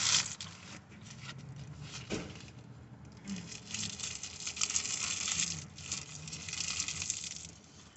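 Rustling and crinkling handling noises that come and go through the middle and second half, with a single sharp click about two seconds in.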